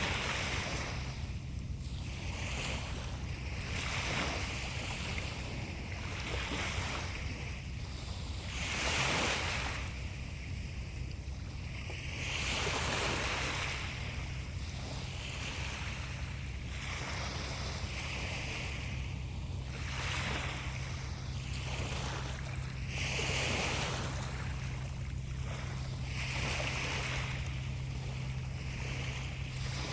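Sea waves washing in. A hiss swells and fades every two or three seconds over a steady low rumble.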